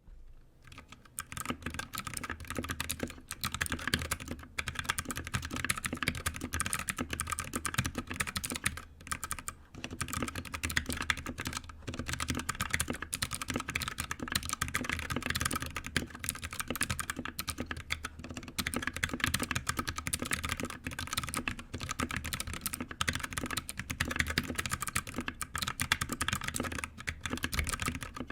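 Continuous fast typing on a 60% mechanical keyboard fitted with a mix of different switches (linear, tactile and clicky from Cherry, Kailh, Gateron and others), keystrokes clacking in a dense stream with a few brief pauses.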